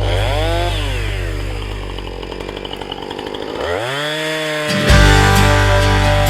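Husqvarna 455 Rancher two-stroke chainsaw dropping off throttle to idle, then revving back up about four seconds in, with background music.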